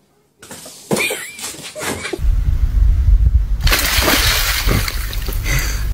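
A dog splashing through shallow water: a dense rush of splashing from about the middle on, over a heavy low rumble that starts about two seconds in.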